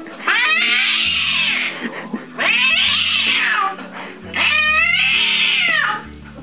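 A domestic cat yowling three times, each a long drawn-out wail of more than a second, over background music.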